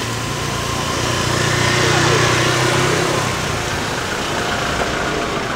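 A motor vehicle's engine running close by, swelling to its loudest about two seconds in and dying away by about three and a half seconds, over steady street noise.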